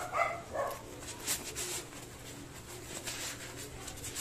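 A dog barks three times at the start. Rustling and light clinks come from a nylon tent bag and metal carabiners being handled.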